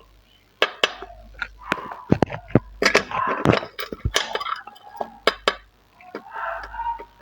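Plastic LEGO bricks clattering and knocking together as a toy train crashes into a brick wall: a dense flurry of sharp clicks and clacks starting about half a second in, thinning out after about five seconds.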